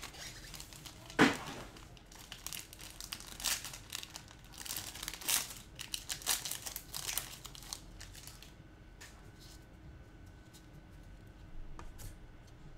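Plastic wrapping on a trading card box and pack crinkling and tearing as it is opened by hand, with a sharp loud crackle about a second in. The crinkling is busiest for the first eight seconds, then gives way to faint handling.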